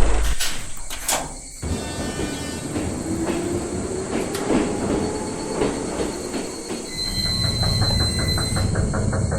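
Train running over the rails, its wheels clacking rhythmically near the end. The sound cuts abruptly twice in the first two seconds.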